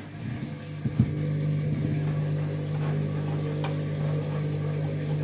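Candy washing machine's drum motor starting a spin with a load of bedding: a steady hum that steps up in level about a second in, just after a couple of short knocks.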